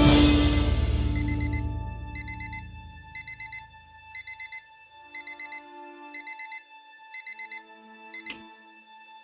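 Digital alarm clock beeping in quick groups of four, about once a second, over soft held notes of music, after a loud swell of music dies away; a sharp click near the end, as the alarm is switched off.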